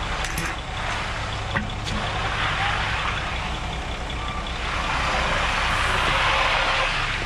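Concrete truck's diesel engine running steadily, under a hiss that swells and fades as concrete is worked.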